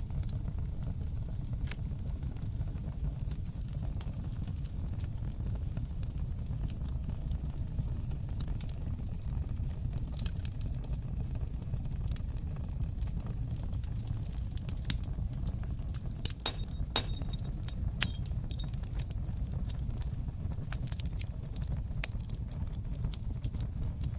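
Wood fire burning in a fireplace: a steady low rumble of flames under scattered sharp crackles and pops. About two-thirds of the way through comes a quick flurry of pops, ending in one loud pop.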